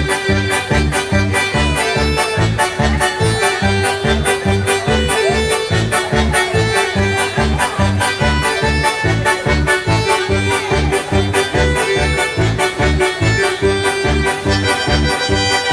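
Instrumental Latin dance music played on an electronic keyboard: an accordion-like lead over a fast, steady drum-and-bass beat of about three thumps a second.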